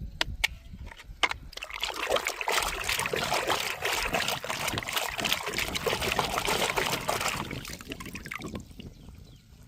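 Water pouring and trickling for several seconds, starting about a second and a half in and trailing off near the end, as when toy cars are rinsed. A few light clicks come just before it.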